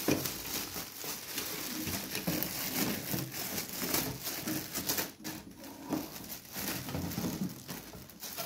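Clear plastic film crinkling and rustling as it is peeled and pulled off an electric tandoor's metal body.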